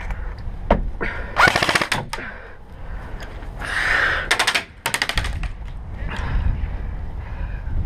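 Airsoft guns firing fully automatic in rapid bursts: one longer burst about a second and a half in, then two short bursts around the middle.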